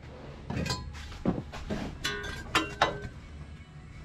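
A handful of light metallic clinks and knocks, some with a short ring, as steel parts and tools are handled.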